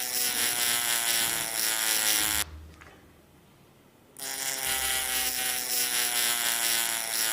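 A piece of paper caught in a spinning wheel, flapping against it in a steady buzz, a Foley trick for an airplane's flying sound. The buzz drops away about two and a half seconds in and comes back about a second and a half later.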